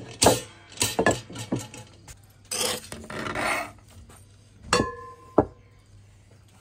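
Dishes and cutlery clinking and knocking, with a short scraping stretch and one clear ringing clink about five seconds in.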